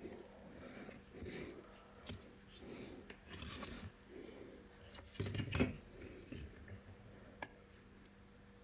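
Faint handling noises as a laptop motherboard and a handheld magnifier are picked up, turned and set down on a rubber repair mat, with a louder clatter about five seconds in.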